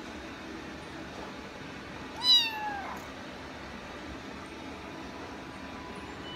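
A Munchkin kitten meowing once, about two seconds in: a short call that falls in pitch.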